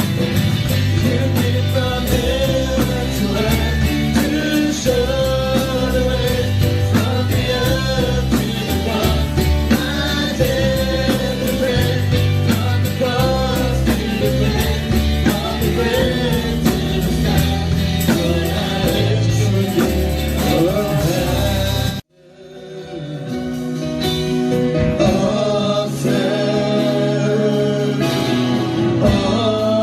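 Gospel worship music: singing over a band with a steady drum beat. About two-thirds of the way through it cuts out abruptly, then comes back softer without the drums and builds up again.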